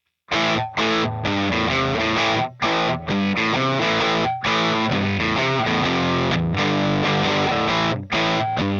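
Electric guitar played through the Valeton GP-200 multi-effects processor's 27-D artist preset, starting about a third of a second in and running as a chord riff broken by short stops.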